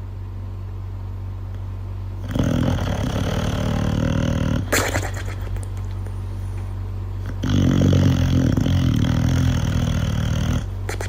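An animal's low, rough rumbling in two long stretches, the second the louder, over a steady low hum, with a short click between them.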